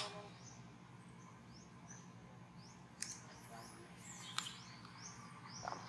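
Faint, high chirps of small birds: short rising notes repeated every half second or so. A couple of sharp clicks come about three and four and a half seconds in.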